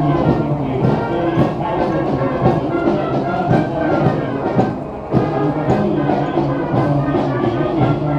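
Brass band music with drums: a military band playing, with sustained brass chords.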